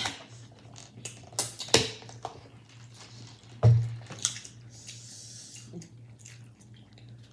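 Eating sounds from a seafood meal: hands working a plastic bag of seafood and chewing, heard as scattered clicks, crinkles and wet squishes. There is one heavier thump a little past halfway, over a low steady hum.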